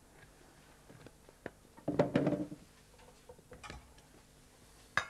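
Kitchen utensils and dishes being handled at a counter: scattered light clicks, a louder clatter about two seconds in, and a sharp clink near the end.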